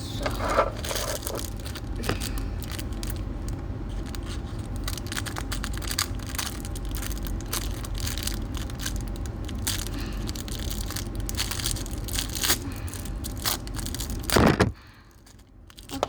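Plastic packaging of a squishy toy crinkling, crackling and tearing as it is opened by hand, with a louder rustle about 14.5 seconds in before the sound stops abruptly.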